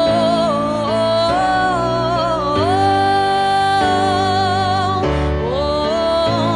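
Worship song music without words: a held, wavering melody line over slow, sustained chord changes with a steady bass, as the song plays out.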